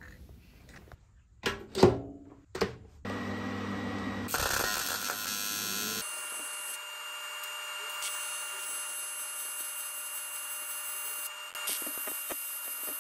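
A few light knocks of aluminium parts being set on a steel table, then a TIG welding arc on aluminium: a steady buzzing hiss from about three seconds in, as the radiator filler neck is welded to the header tank's top cap.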